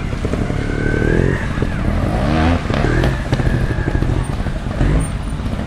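Trials motorcycle engine revving in short bursts as the bike is ridden up over rocks, rising sharply in pitch twice.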